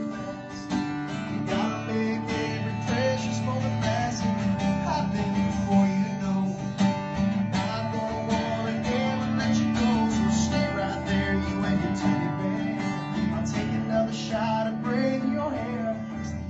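Acoustic guitar strummed and picked steadily, playing a slow country song.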